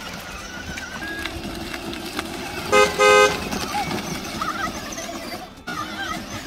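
Horn of a child's electric ride-on jeep giving two short toots in quick succession, the second a little longer, about three seconds in.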